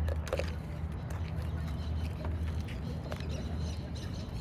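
Deer eating snacks from a person's hand, with a few short crunching sounds over a steady low rumble.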